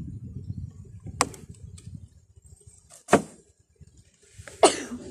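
Wooden beehive frames being worked loose in the hive box: three sharp wooden knocks about a second and a half apart, the second and third the loudest.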